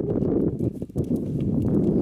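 A pony's hoofbeats at a canter on soft sand arena footing, dull thuds under a loud, fluctuating low rumble.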